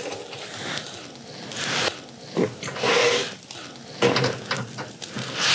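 Skewers of grilled heart being laid on a wire grill mesh over charcoal: light clicks and scrapes as they are handled, with a sharper knock about four seconds in.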